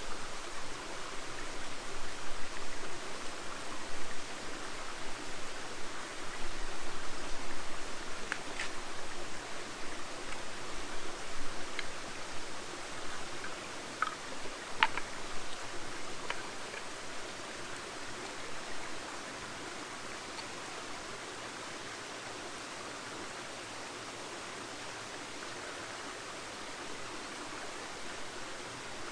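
Steady rushing noise of running water, with several sharp crackles from the newly lit campfire scattered through the middle. The noise is uneven in the first twenty seconds or so and then settles to an even rush.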